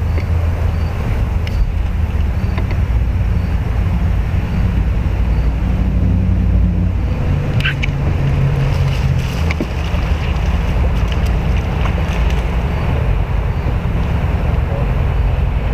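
Steady low rumble with a faint hum, picked up by a camera fixed to a small fishing boat, with a few faint clicks about halfway through.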